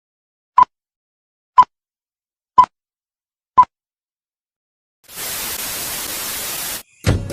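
Four short, identical beeps exactly one second apart, like a countdown leader, then a burst of static hiss lasting nearly two seconds that cuts off suddenly. Music starts just before the end.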